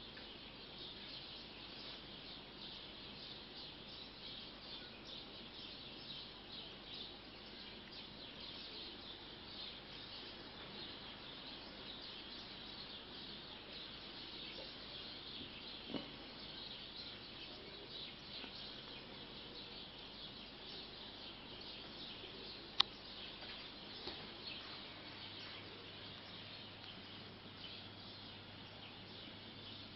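Faint, steady high-pitched chirping outdoors, with a single sharp click about 23 seconds in and a couple of soft knocks.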